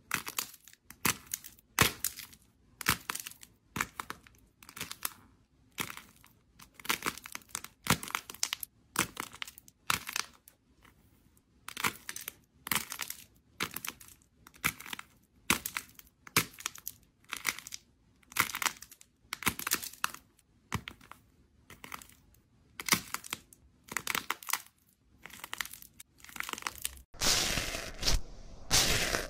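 Fingers squeezing and pulling apart purple slime balls, each squeeze giving a short burst of crackling, about one or two a second. Near the end a continuous denser crackling starts, as a microphone is pressed into bubbly pink foam slime.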